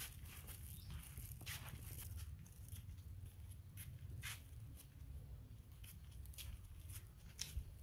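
Faint footsteps scuffing and crunching on dry sandy dirt and leaf litter: soft irregular crackles with a sharper crunch near the end, over a low steady rumble.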